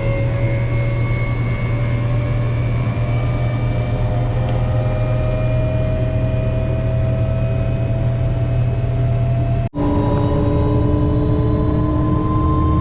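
Helicopter in flight heard from on board: a steady loud drone of rotor and turbine, with whining tones slowly rising in pitch. About ten seconds in the sound drops out for an instant, then resumes with a different set of whines.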